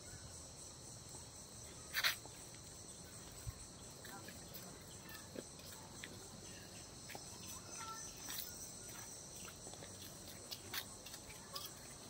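Steady, high-pitched chorus of insects in a forest, with a few scattered faint ticks, the clearest about two seconds in.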